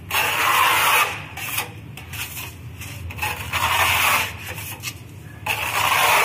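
A wall painter's hand tool rubbing and scraping across a rough cement-plastered wall as a white coat is spread on, in repeated strokes with short pauses between them.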